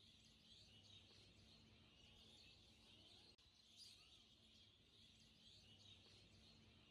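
Near silence, with faint bird chirps in the background.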